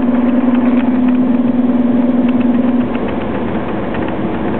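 Scania OmniCity double-decker bus engine running, heard from inside on the upper deck: a steady drone that stops a little under three seconds in, after which the cabin sound is a little quieter.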